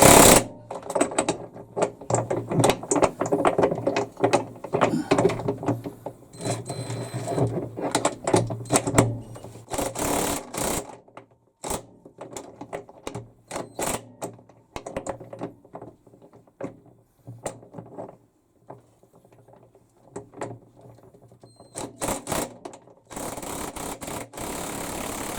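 24-volt cordless impact wrench hammering in repeated short bursts, tightening the nut that holds a Hitachi BW-V80C washing machine's wash tub onto its shaft. Near the end a steady hiss takes over.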